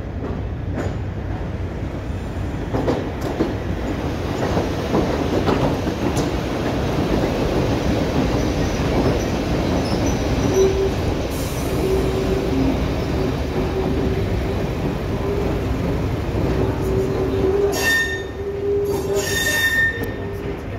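Diesel multiple unit running past close by: steady rumble of its engines and wheels on the rails. A steady whine comes in about halfway, and short high-pitched wheel squeals come near the end.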